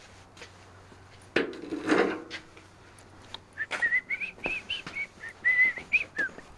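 A man whistling a short tune of wavering notes from a little past halfway to near the end, with scattered footsteps and a brief rustling clatter about a second and a half in.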